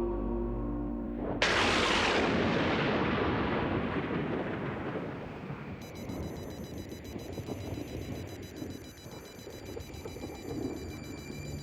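Music cut off by a sudden loud explosion about a second and a half in, which rumbles and slowly dies away over several seconds.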